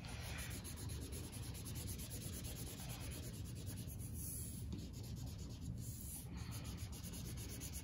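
Felt-tip marker tip on paper, dabbing small freckle dots in a run of light, quick taps and scratches.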